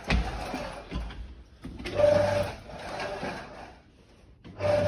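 Hen-shed chain feeder's electric drive motor and gearbox straining in short bursts of hum against a feed chain seized with rust, with knocks and rattling between. One burst comes about two seconds in and another near the end. The chain is bound up and the drive is struggling to move it.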